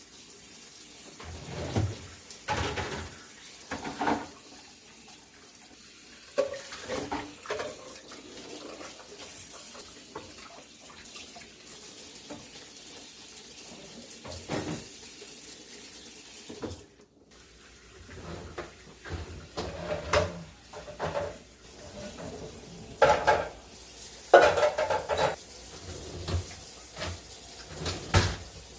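Dishes and plastic storage containers being handled in a kitchen, knocking and clattering at irregular intervals, with water running from a tap for part of the time.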